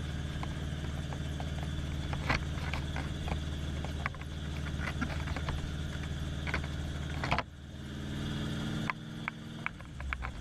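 Helicopter engine running on the ground, heard from inside the cabin: a steady low drone with scattered sharp clicks, dipping briefly about seven seconds in while the main rotor turns overhead.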